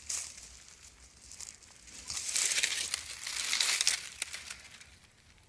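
Crackling, crinkling rustle of dry material being handled or trampled, swelling for about two seconds in the middle and then fading.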